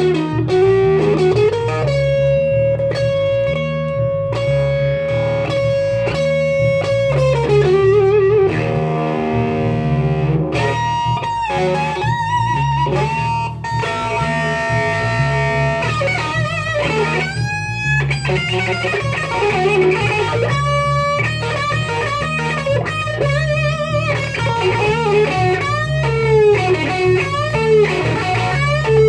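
Live blues-rock electric guitar solo over a repeating electric bass line. About two seconds in the guitar holds one long note for several seconds, which ends in a wide vibrato, and quick runs of notes follow.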